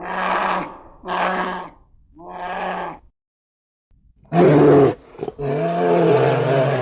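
Sheep bleating three times, followed by two louder, longer, deeper animal calls.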